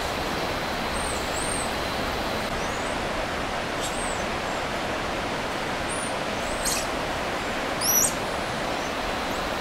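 Jungle ambience: a steady rushing hiss with scattered short, high-pitched chirps from birds or monkeys in the trees, the loudest a quick two-note chirp about eight seconds in.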